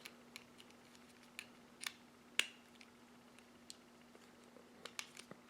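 Faint, irregular clicks and taps of 9-volt batteries being handled and pressed onto tape, over a faint steady hum.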